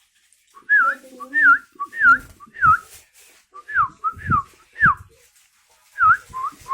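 A person whistling a string of short notes, each dipping and rising in pitch, to call a pet sooty-headed bulbul; a run of falling notes follows, and after a brief pause a quicker run comes near the end.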